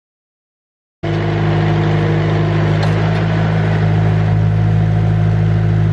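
Silence, then about a second in a Mustang 940E skid steer's Yanmar diesel engine cuts in abruptly, running steadily and loud.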